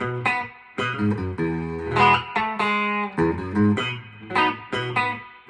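Electric guitar played through a 1976 Music Man HD130 tube amp head on a clean tone with a little reverb: a run of picked chords and single notes, each left ringing.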